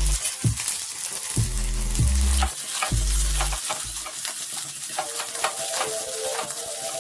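Sliced onions and green chillies sizzling in hot oil in a kadai, scraped and stirred with a metal spatula, the strokes coming more often from about halfway.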